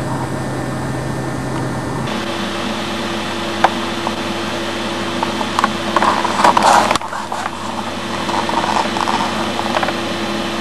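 A steady mechanical hum whose pitch changes abruptly about two seconds in. Around six to seven seconds in comes a brief louder rustling noise with a few clicks.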